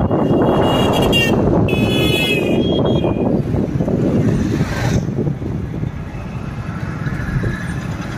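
Motorcycle rider's view in heavy traffic: engine, road and wind noise with the rumble of surrounding vehicles. High, steady vehicle horn tones sound several times in the first three seconds.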